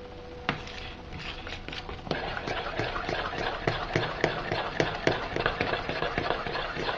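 Spoon stirring a thick bread-cake batter in a bowl: a run of irregular soft knocks and scrapes against the bowl, about three or four a second, starting about half a second in.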